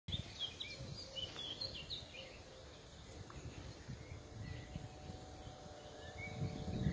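Small birds chirping in short, quick calls, busiest in the first two seconds and then sparse, over the gusty rumble of wind on the microphone.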